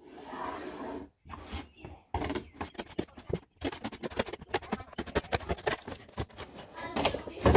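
A pen scratching along a marked line on a cardboard cereal box, then scissors cutting through the cardboard from about two seconds in with rapid, repeated snips and crunches.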